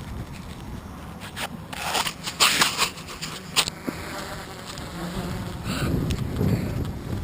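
Mini tricopter's electric motors and propellers buzzing in flight, with gusty wind and crackling knocks on the microphone, strongest in the first half.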